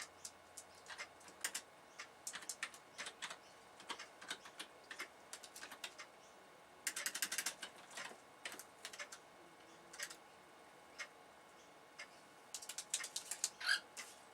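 Typing on a computer keyboard: irregular key clicks, with quick dense runs of keystrokes about halfway through and again near the end.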